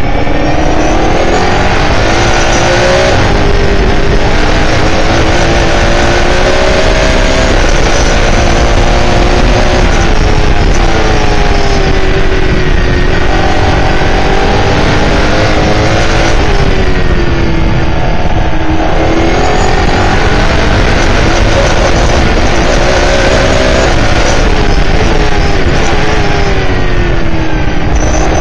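S5000 racing car's 5.0-litre V8, heard from on board, accelerating hard through the gears with pitch climbing, then dropping under braking and downshifts before climbing again, several times over.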